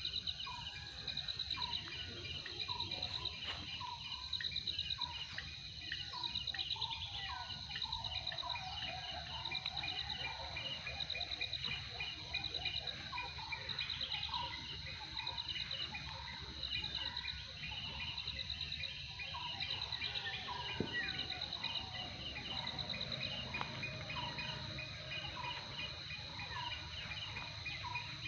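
Outdoor ambience of insects chirring in steady high-pitched pulses, with a short bird call repeated over and over and other birds chirping over a low background rumble.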